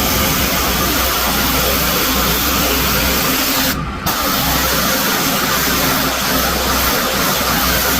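Pressure washer running: a steady hiss of high-pressure water spray over the engine's constant low hum. The spray cuts out for a moment about halfway through.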